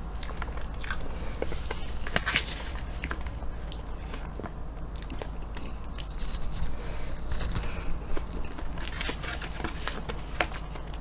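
Close-miked eating of a chocolate ice-cream sundae pie: chewing and smacking mouth sounds, with a plastic fork cutting, tapping and scraping on the paper carton, which crackles. It plays over a low steady hum.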